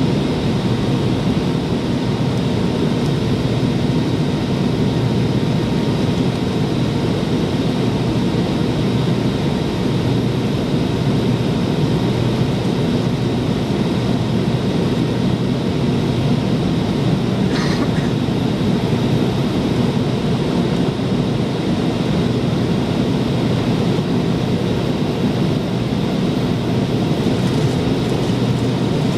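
Steady roar inside the cabin of a McDonnell Douglas MD-88 in flight, from its rear-mounted Pratt & Whitney JT8D turbofans and the rush of air, with faint steady whining tones over it. A brief faint click comes about two-thirds of the way through.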